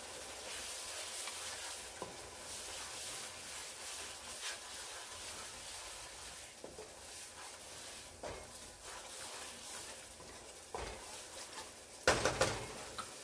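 Onion and yogurt masala sizzling gently in a non-stick pan while a wooden spatula stirs and scrapes through it. There is a brief louder clatter near the end.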